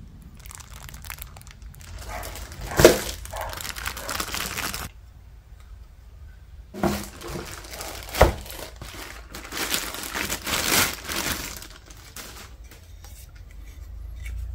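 Clear plastic bags and wrapping crinkling and rustling as they are handled, in two spells, each with a sharp click or knock near its start.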